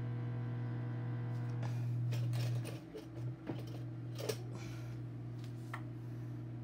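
Microwave oven running with a steady low hum while it heats a tub of store-bought icing to make it pourable; the hum dips briefly about three seconds in, and a few light clicks follow.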